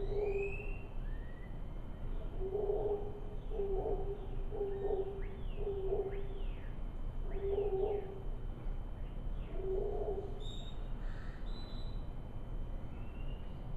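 Howler monkeys calling in the distance: a string of short, low, hoarse calls, bunched together in the first half and then more spaced out, fading after about ten seconds. Birds chirp and whistle over them throughout.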